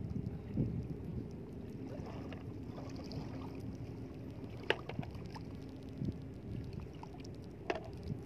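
Shallow seawater sloshing and lapping around a person wading, with wind on the microphone. Two sharp clicks stand out, one about halfway through and one near the end.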